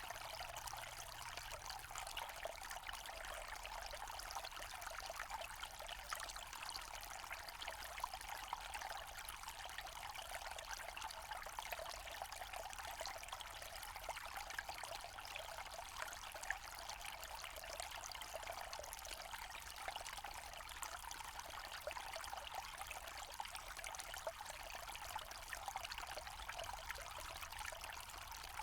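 Small forest stream trickling and babbling over stones, a steady splashing water sound without pauses.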